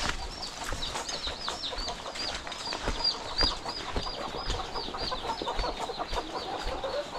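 Chickens calling: a rapid string of short, high, falling peeps, about three or four a second, with lower clucks joining near the end.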